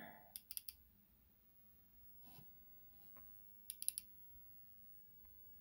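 Faint computer mouse-button clicks in a quiet room: a quick run of three clicks near the start and another quick run of three or four about four seconds in.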